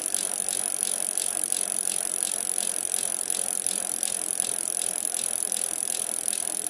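Bicycle freewheel ratchet clicking in a rapid, even ticking as the bike coasts, over a steady high hiss.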